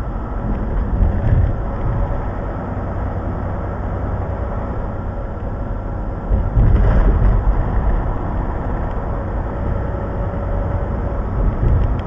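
Steady engine and road noise of a truck at highway speed, heard inside the cab, with a louder rumble for a second or two about six seconds in.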